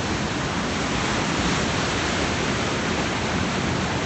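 Ocean surf breaking: a steady, even rushing noise with no separate wave crashes standing out.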